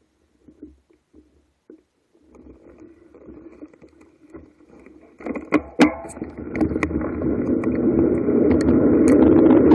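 Wind rushing over the camera microphone and tyre noise on tarmac as a bicycle picks up speed downhill, starting almost silent and building steadily louder from a couple of seconds in. Several sharp clicks and rattles from the bike come around the middle.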